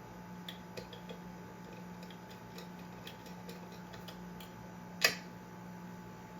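Small metallic ticks and clicks as a screw is turned a little way into a ceiling fan's metal blade iron, with one sharp, louder click about five seconds in.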